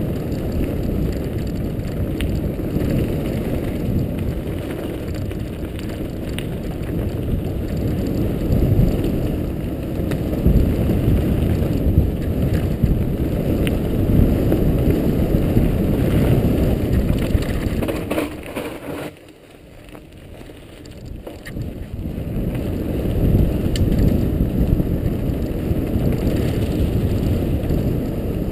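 Mountain bike rolling fast over a gravel singletrack, heard from an action camera riding along with it: a steady rumble of tyres on gravel and rattling bike parts, with scattered knocks. About two-thirds of the way through the rumble drops away for a few seconds, then picks up again.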